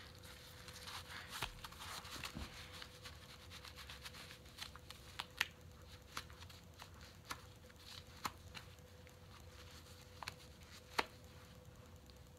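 Oakley gloves being pulled on and worked over the hands: soft fabric rustling and scuffing with scattered small sharp clicks and taps, the loudest about 5 and 11 seconds in, over a faint steady hum.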